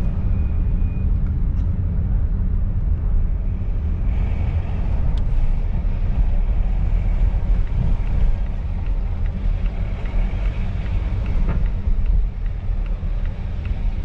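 A 2018 Volvo XC90 D5 driving, heard from inside the cabin: a steady low rumble of its four-cylinder diesel engine and tyres on the road.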